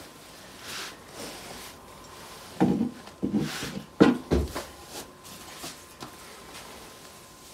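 Household handling noises: soft rustling, then a run of knocks and clatter about two and a half to four and a half seconds in, ending in a dull thump, as purchased items are handled and passed over.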